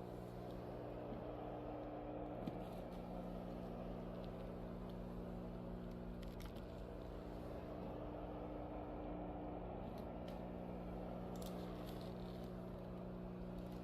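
Benheim BSM-800WH steam mop running with a steady electric buzz, with light rustles and a few soft clicks as the mop is moved.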